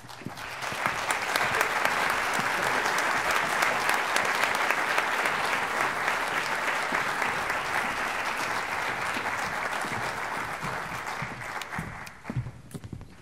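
Audience applauding: dense clapping that swells at once, holds steady, and dies away about twelve seconds in.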